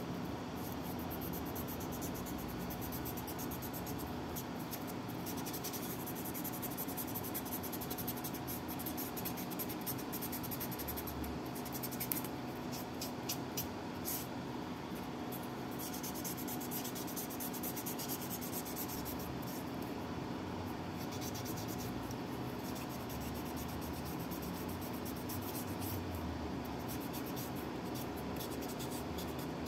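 Grey sanding sponge rubbed back and forth over a small teal plastic model part: a fast, scratchy rasping with a few short pauses.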